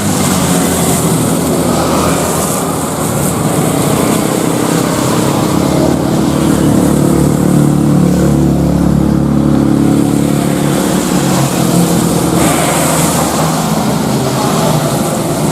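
Jet airliner engines running at high power: a loud, steady rumble with low droning tones, swelling a little in the middle.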